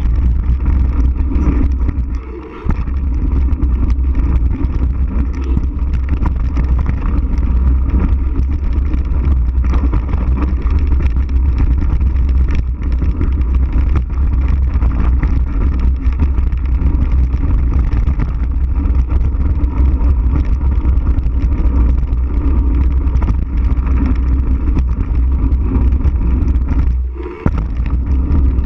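Wind buffeting a handlebar-mounted action camera's microphone, together with mountain bike tyres rolling fast over a dirt jump trail: a steady low rumble and rushing noise. It drops away briefly twice, about two and a half seconds in and near the end.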